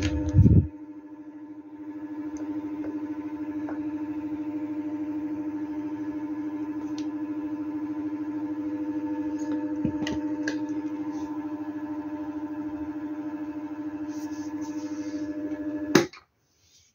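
Desk fan running off a portable 220 V power unit's inverter, giving a steady electrical hum. A thump comes about half a second in, and the hum stops abruptly with a click near the end as the fan is switched off.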